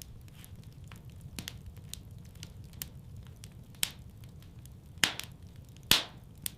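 Wood fire crackling with a low steady rumble and a few sharp, sparse pops, the loudest two near the end.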